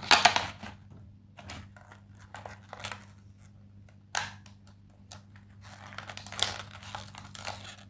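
Clear plastic clamshell case of press-on nails being handled and pried at: scattered plastic clicks and crinkles, strongest just at the start and again about four and six and a half seconds in. A faint steady low hum runs underneath.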